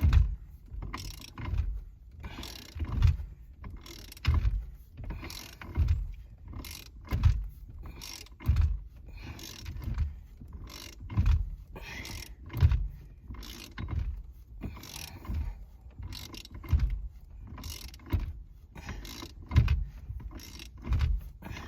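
Socket ratchet wrench backing off a bolt, worked in regular strokes about every second and a half: each stroke a knock followed by a run of ratchet clicks. The bolt needs a lot of turning but is coming loose.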